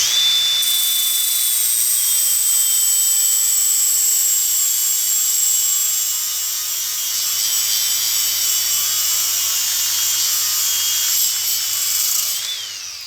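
Electric drill running at speed with a metal part against a flap wheel, a steady high-pitched whine of sanding metal. Near the end the pitch rises briefly, then the drill winds down.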